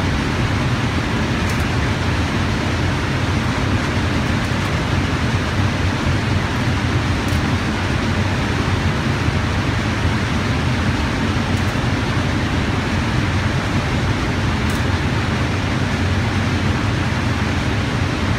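Steady rushing air of an indoor shooting range's ventilation system, with a few faint clicks now and then.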